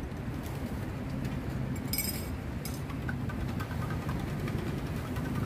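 Steady low rumble of road traffic and idling engines. About two seconds in there is a short bright clink, and a few light ticks follow, from a spoon stirring in a cup.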